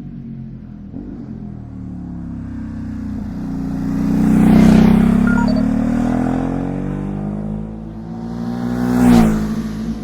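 Ducati SuperSport S L-twin engine running through its standard exhaust, building revs to a peak about halfway through, easing off, then revving up again near the end and dropping sharply.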